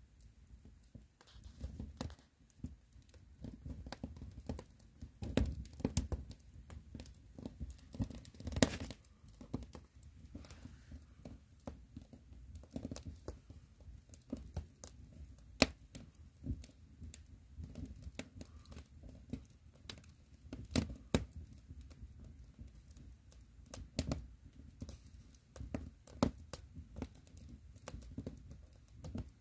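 Firewood burning, crackling and popping at irregular intervals over a low, steady rumble of flame, with a few sharper, louder pops.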